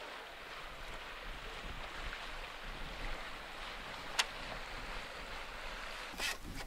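Water swishing and lapping along the hull of a small sailboat under way, with wind. A sharp click about four seconds in, and another couple near the end.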